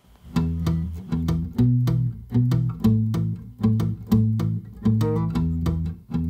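End-credits background music with a steady quick beat and low bass notes, starting just after a moment of near silence.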